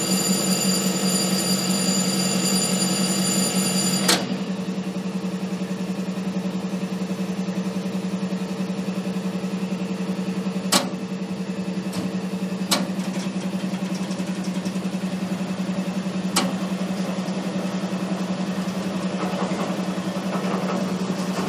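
Diesel locomotive engine running with a steady low drone, heard from the outside walkway of the moving locomotive. A steady high multi-tone whine rides on top of it and cuts off abruptly about four seconds in, and three sharp clicks come later.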